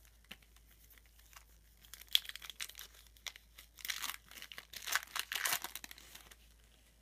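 Foil wrapper of a trading-card pack being torn open and crinkled by hand: faint ticks at first, then crackling rips and crinkles from about two seconds in, in several spurts, stopping shortly before the end.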